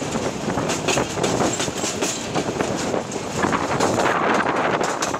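Heritage passenger train's coaches running along the track, heard from a coach window: a steady rattle and clatter of wheels on the rails.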